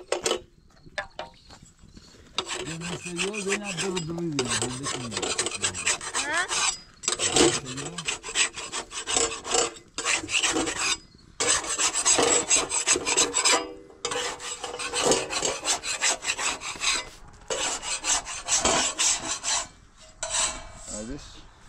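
Metal spatula scraping over a domed iron saj griddle and the thin flatbread on it, in long runs of strokes broken by short pauses.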